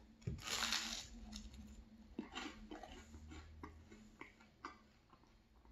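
A bite into crunchy toast spread with butter and strawberry jam, a loud crunch about half a second in, then chewing with a run of short, irregular crunches that thin out near the end.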